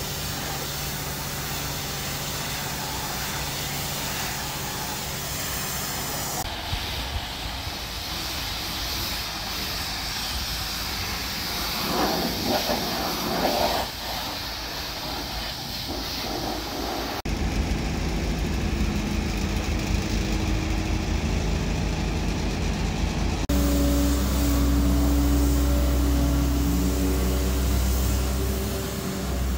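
Boatyard haul-out sounds: a travel lift's engine running steadily, then a pressure washer spraying the sailboat's hull with a loud hiss that peaks around the middle. The steady engine hum returns after abrupt changes later on.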